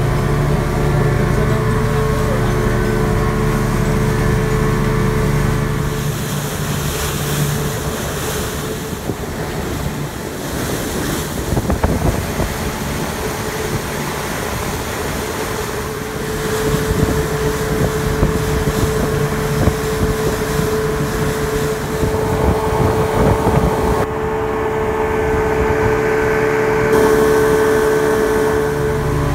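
Patrol boat's engine running at speed, with water rushing along the hull and wake and wind on the microphone. The engine hum is strongest in the first few seconds and again near the end. The water and wind noise is heaviest in the middle.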